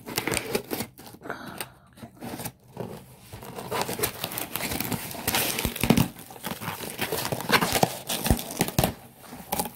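Plastic shipping mailer being torn open and crinkled by hand: irregular rustling and tearing with sharp crackles, getting busier after a few seconds, with a few dull knocks.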